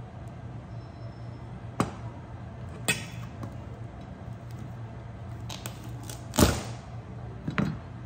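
Kitchen knife cutting through a small cooked crab's shell on a cutting board: a few sharp cracks and knocks, the loudest about six seconds in, over a steady low hum.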